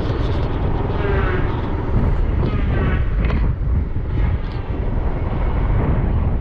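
Motorcycle running on the move, with a steady low rumble of wind over the microphone.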